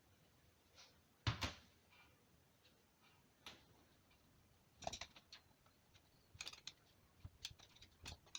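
Light clicks and knocks of small metal power steering pump parts being handled during disassembly, with a sharper double knock about a second and a half in.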